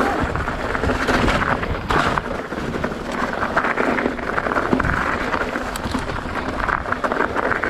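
Wind buffeting the microphone of a GoPro action camera on a mountain bike descent, mixed with the tyres on rough, muddy trail and a dense clatter of rattles and knocks from the bike over bumps.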